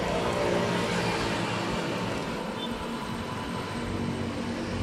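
Steady street traffic noise with vehicle engines running.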